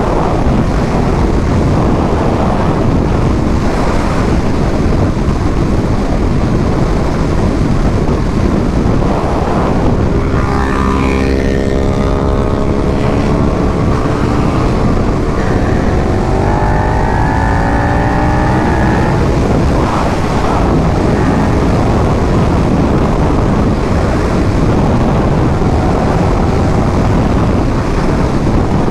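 Steady wind noise buffeting the microphone of a moving motorcycle, with the motorcycle's engine note heard under it. The engine note falls in pitch about ten seconds in, then climbs again a few seconds later.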